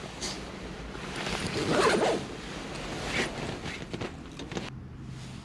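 Rustling of fabric, with rough zipper-like rasps in swells of about a second each, the strongest about two seconds in.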